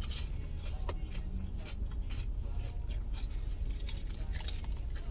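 A person chewing and biting into crispy fried chicken, a run of close, crackly crunches and wet chewing sounds, over a steady low hum.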